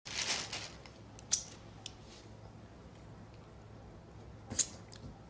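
Faint handling noises: a short rustle at the start, a few small clicks and another brief rustle near the end, over a low steady hum.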